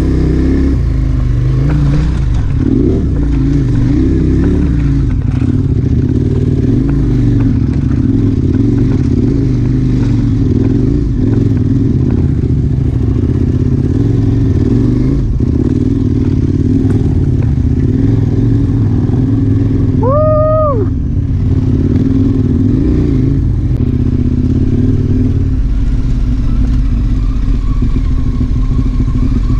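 KTM 1090 Adventure R's V-twin engine running under load on a loose, rocky dirt track, revs rising and falling, with rocks clattering. About twenty seconds in, a short pitched tone sounds for about a second.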